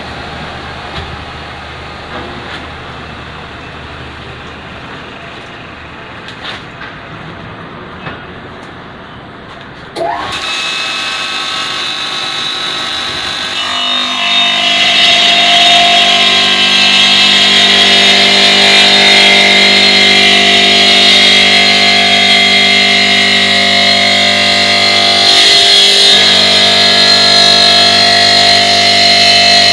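OSC TITAN 5-axis CNC stone cutting machine running. About ten seconds in its motor starts up with a rising whine, and from about fourteen seconds it runs louder with a steady high whine. Before that there is quieter machine noise with a few clicks.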